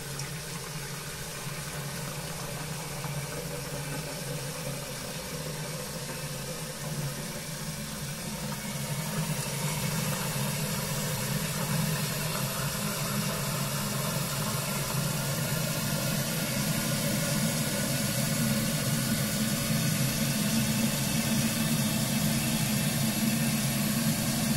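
Concealed Geberit cistern refilling through a newly fitted fill valve: water running in with a steady hiss and a low hum, growing gradually louder.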